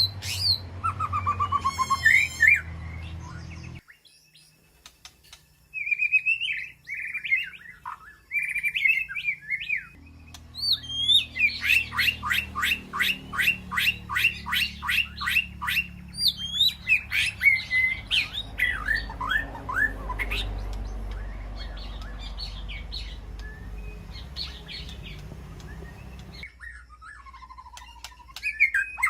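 White-rumped shama singing: varied whistled phrases and trills, with a fast run of repeated rising notes, about five a second, in the middle.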